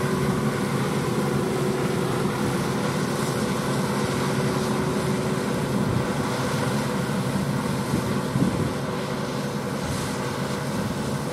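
John Deere 8R tractors pulling KMC peanut pickers across the field: a steady drone of diesel engines and picker machinery, easing off slightly near the end.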